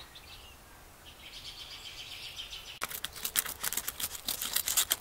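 Small scissors snipping through a thin copper shim sheet: a quick run of sharp snips and crackles starting about three seconds in, after a faint high hiss.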